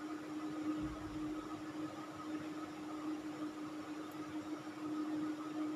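Steady machine hum with an even hiss and a constant tone, with a soft low bump about a second in.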